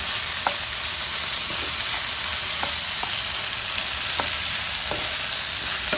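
Chopped tomatoes, onions and capsicum sizzling in hot oil in a pan as they are stirred in, with a spatula tapping the pan about six times at irregular intervals.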